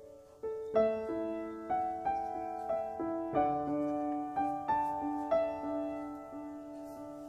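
Background piano music: a slow, gentle melody of single struck notes over held chords.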